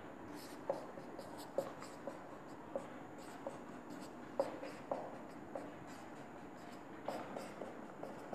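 Marker writing on a whiteboard: faint, short strokes with light clicks of the tip against the board, about one every half second to a second.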